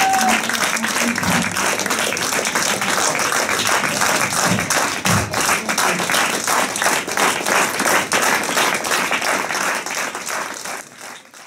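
Audience applauding with dense, steady clapping that dies away in the last second.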